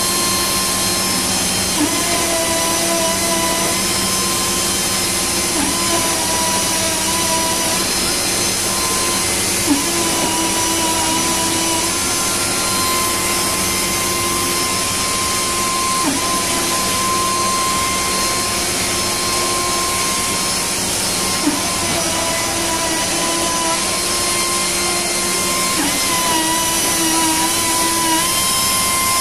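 Router spindle on a six-axis robot arm running at high speed while trimming a moulded plastic part. It makes a steady whine over a lower hum and a hiss, and the whine dips briefly in pitch every few seconds.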